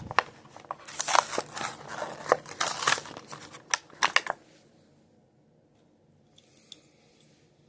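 Hot Wheels blister pack being opened by hand: plastic blister and cardboard backing crackling, crinkling and clicking in a dense run for about four seconds.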